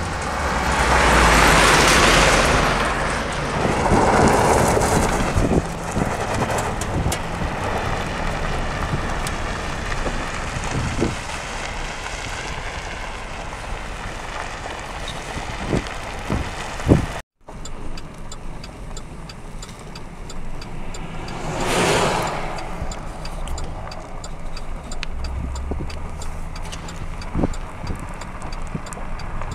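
Vehicle engine running steadily outdoors, with wind buffeting the microphone in loud rushes about two seconds in, about four seconds in and again about two-thirds through. The sound drops out for an instant just past halfway.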